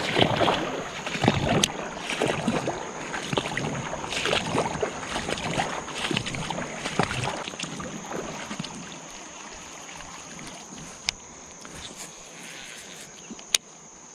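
Creek water sloshing and splashing, louder for the first several seconds, then settling to a quieter steady rush. A steady high-pitched whine runs under it, and there are two sharp clicks near the end.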